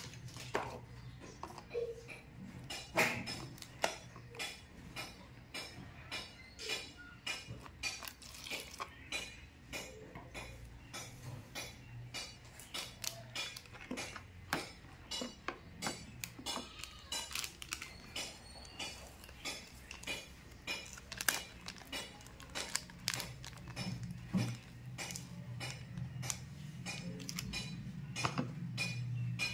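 Irregular clicks, taps and light clinks, a few a second, from hands handling a metal coin and a thin clear plastic tub on a hard tabletop.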